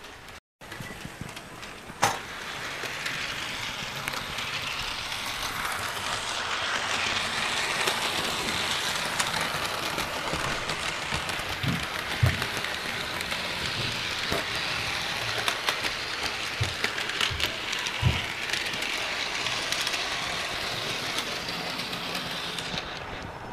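Model train running along its track, a steady rushing rattle of wheels and motor that starts with a click about two seconds in, dotted with small clicks and a few light knocks.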